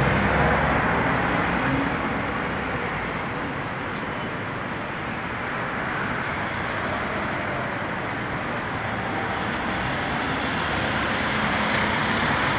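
Steady city road traffic: cars and minibuses running and passing close by. A nearby engine hums low in the first two seconds, and the traffic grows a little louder near the end as a van passes close.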